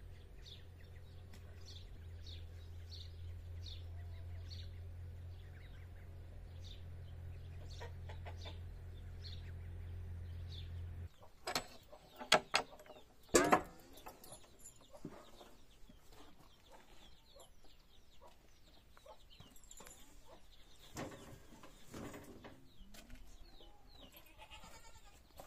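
Birds cheeping over a steady low rumble; after a cut, a padlock and door bolt are unlocked, a few loud sharp metal clicks and clanks, one briefly ringing, followed by quieter knocks and shuffling as a wooden door opens.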